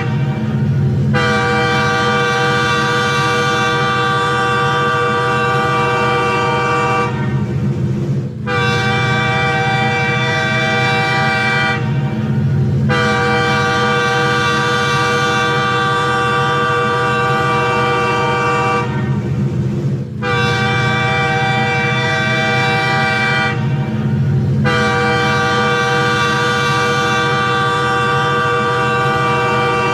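Multi-tone train air horn sounding a chord in several long blasts of three to six seconds each, with short breaks between them, over a steady low rumble.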